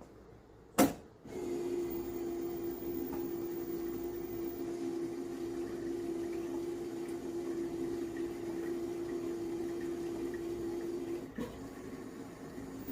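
LG washing machine's drain pump switching on with a click, running with a steady hum and water wash for about ten seconds, then cutting off with a click.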